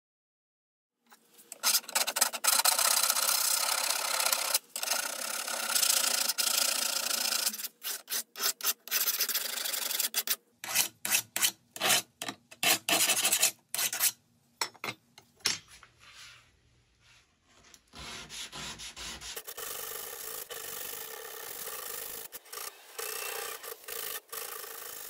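A rust-pitted steel knife blade being polished by hand, scrubbed back and forth with an abrasive pad as it lies flat on a wooden workbench. It starts after about a second: first continuous loud rubbing, then a run of short separate strokes, then softer, steadier rubbing near the end.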